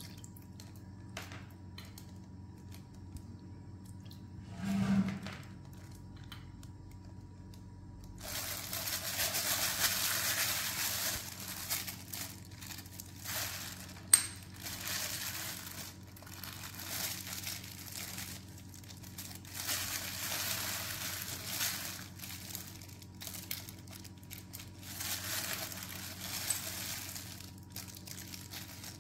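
Irregular crinkling of a plastic seasoning bag and sauce being poured onto raw pork in a stainless steel bowl, with a sharp clink about fourteen seconds in. A low steady hum runs underneath.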